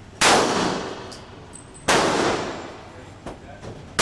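Two gunshots about a second and a half apart, each sharp crack followed by a long ringing echo that fades away.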